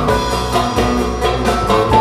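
Instrumental Turkish folk music led by a bağlama (long-necked saz), a fast plucked melody of short held notes over a backing beat.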